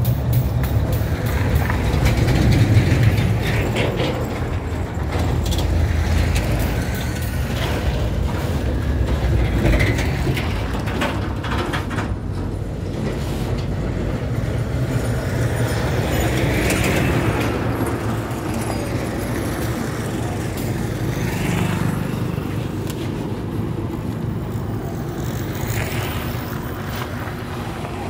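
Steady low rumble of a motor vehicle running close by, with occasional metallic clicks and knocks from a hand-lever grease gun being worked on the bus chassis.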